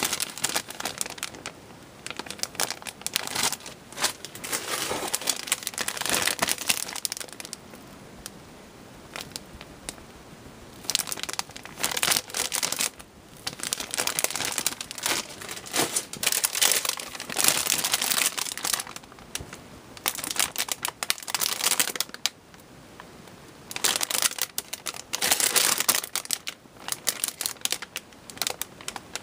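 Thin clear plastic bags crinkling as sealed model-kit runners are handled and turned, in bursts with short quieter pauses between.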